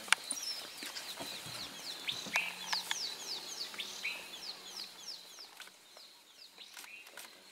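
African wild dogs twittering while feeding at a kill: a run of quick, high-pitched, falling chirps, several a second, that fade out after about five seconds, with a few sharp clicks among them.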